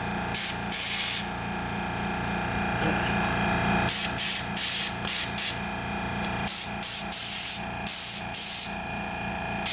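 Air-compressor inflator chuck on a tire valve, letting air in as repeated short hissing bursts: two near the start, then a rapid series from about four seconds on. The Goodyear 2-gallon silent compressor hums steadily underneath.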